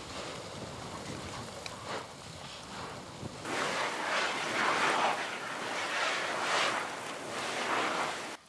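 Molten lava gushing and spattering from a spatter-cone vent, a rushing noise with wind on the microphone. About three and a half seconds in it grows louder and surges up and down.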